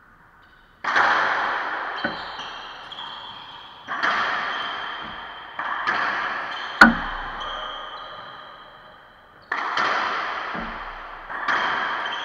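Racquetball rally: the rubber ball cracking off racquets and the court walls about eight times, each hit echoing and dying away in the enclosed court, with one sharp, loudest hit about seven seconds in.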